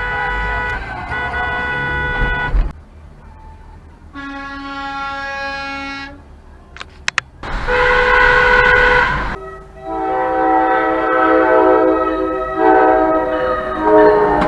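A string of separate vehicle horn blasts: a long honk at the start, a clean steady honk about four seconds in, and a loud honk around eight seconds. From about ten seconds a horn sounds a run of changing notes like a tune.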